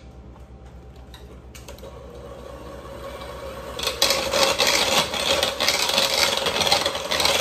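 Electric hand mixer beating a thick butter, sugar and egg batter in a bowl. It comes in loud about four seconds in as a steady whir with the beaters scraping through the mix.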